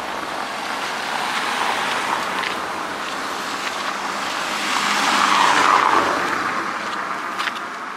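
Road traffic noise: tyre and engine noise of a car going by, swelling to its loudest about five to six seconds in and then fading.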